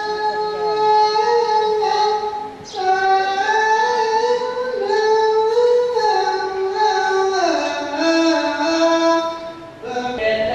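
Song sung in a high voice: long held notes that step up and down in pitch, with two brief breaks between phrases, one a little over two seconds in and one near the end.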